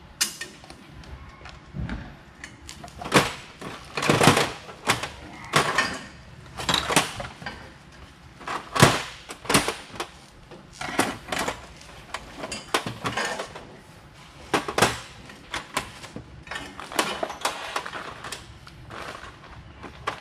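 Irregular metallic clinks, clicks and knocks of hand tools on car exhaust hardware: sockets and wrenches knocking against metal as fittings are worked on.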